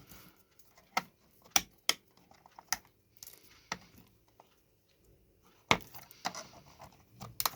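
Irregular sharp clicks and taps of a small step-down converter being handled, about eight in all, with the loudest near the end.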